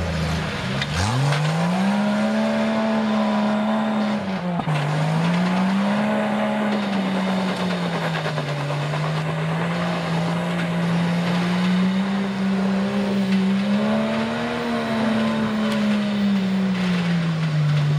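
Off-road truck engine revving hard under load as a stuck pickup is towed out of deep mud. Its pitch climbs sharply about a second in, then rises and falls again and again as the revs swell and drop.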